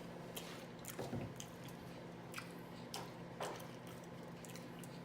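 Quiet close-miked chewing with a few soft, wet mouth smacks spread through.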